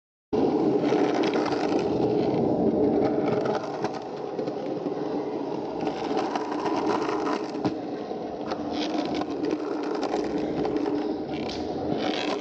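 Skateboard wheels rolling, heard from a camera mounted on the board: a steady close rumble with rattling and scattered clicks. It starts abruptly just after the beginning and eases a little after about three and a half seconds.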